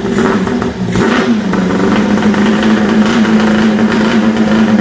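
Freshly rebuilt Kawasaki H2 750 air-cooled two-stroke triple blipped once about a second in, then settling back to a steady, slightly wavering idle.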